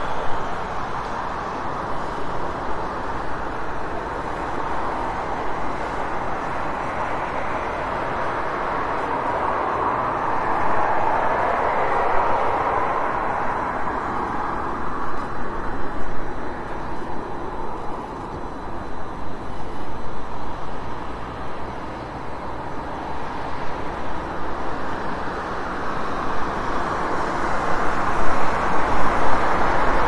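City street traffic ambience: a continuous wash of passing vehicles, swelling about ten to twelve seconds in and getting louder again near the end.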